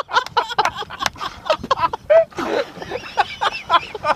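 Excited voices of people on a boat in short, rapid bursts without clear words, with a brief splash of water about halfway through.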